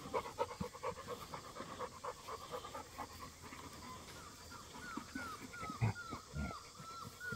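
Dog panting quickly, then a string of short, high whines that each fall in pitch, two or three a second, in the second half.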